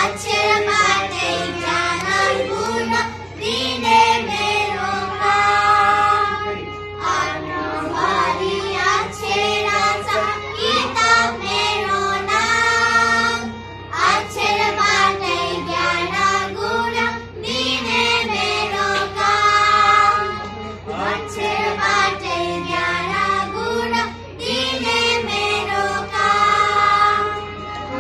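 Four young girls singing a song together, with brief pauses between phrases.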